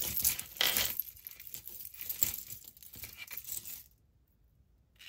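Costume jewelry and beaded necklaces clinking and jangling against each other as they are handled, stopping about four seconds in.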